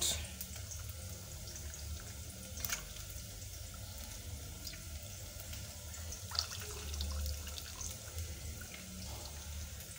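Hands washing a smoked fish in a metal pot of hot water: faint sloshing and dripping, with a couple of light knocks, over a low steady hum.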